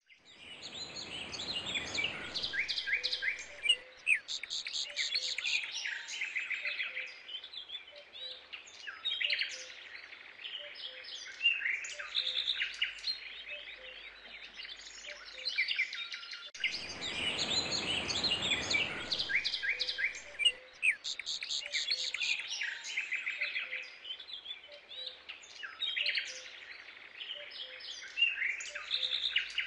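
Birds chirping and twittering, many quick high chirps throughout, with a soft rush of noise twice: near the start and a little past the middle.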